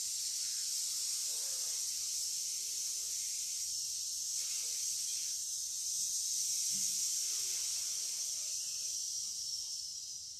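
A person's long, steady 'sss' hiss exhaled through the teeth, the Wood element's healing sound made while holding a forward-bending Do-In stretch; it begins to fade near the end.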